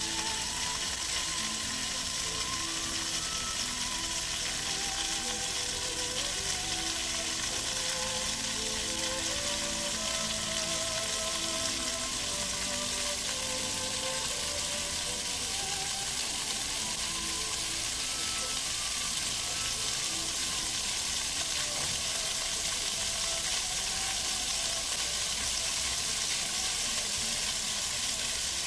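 Water jets of an animated fountain spraying up and splashing down onto wet paving: a steady hiss of falling water that does not let up.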